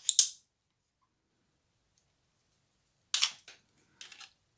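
Hard plastic belt clip being fitted onto the back of a Baofeng UV-9R Plus handheld radio: sharp plastic clacks right at the start and again about three seconds in, then a few lighter clicks near the end.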